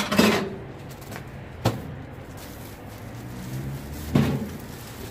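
Household items being handled and set down: a knock right at the start, a sharp click a little over a second later, and a heavier thud near the end, with rustling and shuffling in between.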